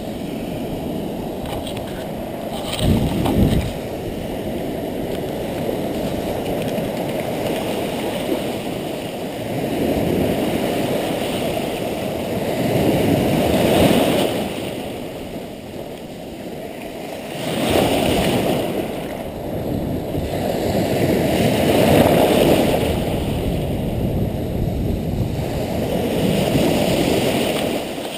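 Small waves breaking and washing up a sandy beach, the surf swelling and falling back in surges every four seconds or so.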